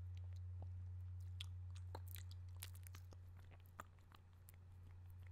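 Close-miked wet mouth sounds: scattered lip smacks, tongue clicks and sucking noises, thickest in the middle, with one sharper click about four seconds in. A steady low hum runs underneath.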